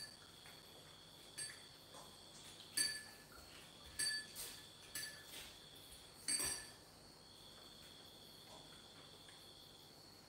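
A faint, steady, high cricket trill, with a handful of light ringing clinks of dishes and cutlery between about one and seven seconds in, the last one the loudest.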